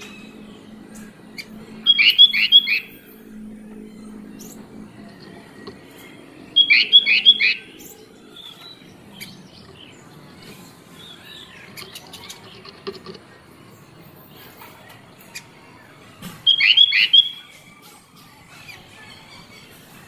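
Sooty-headed bulbul (kutilang) singing: three short, loud phrases of three or four quick, clear notes, with softer chirps in between.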